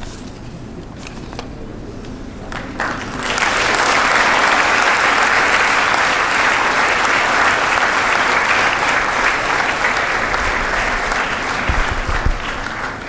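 Audience applauding: a few faint clicks at first, then the clapping starts about three seconds in, runs steadily for about ten seconds and dies away near the end.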